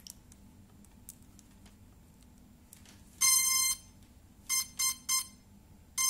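Cheerson CX-20 quadcopter's electronics beeping as power comes on: a faint click of the plug going in, then one long beep, three short beeps at the same pitch, and near the end a quick run of tones rising in pitch, the startup tones of the flight controller and motor speed controllers.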